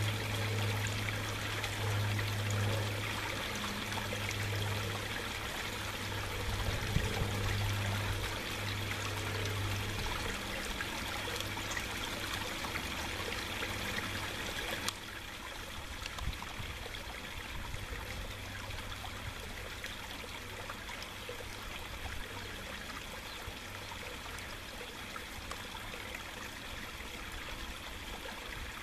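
Water trickling and running steadily into a pond, with a low hum underneath that fades out after about ten seconds. The water sound drops to a quieter level about halfway through.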